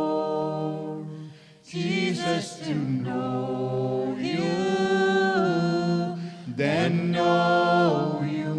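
A small group of men's and women's voices singing a worship song a cappella, holding long sung notes, with short pauses for breath about a second and a half in and again after about six seconds.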